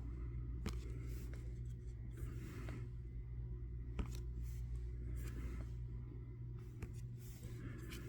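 Garbage Pail Kids trading cards being flipped through by hand, the cards sliding and scraping against each other in soft rustles with a few light ticks, over a steady low hum.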